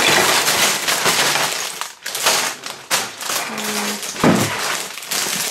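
Sealed plastic bags of LEGO bricks crinkling as they are slid out of the box and handled, with the loose plastic bricks clicking and rattling inside the bags.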